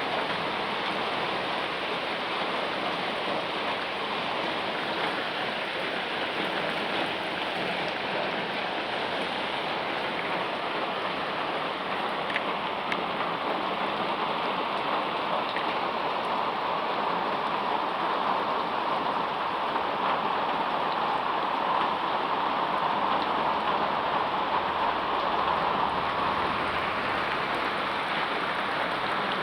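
Steady rain falling, an even hiss with scattered drops, a little fuller in the middle stretch and toward the end.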